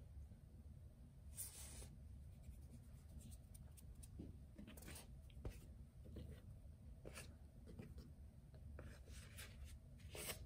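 Faint kitchen handling: several brief soft scrapes and light knocks as dough balls and a wooden tray are moved over a wooden cutting board.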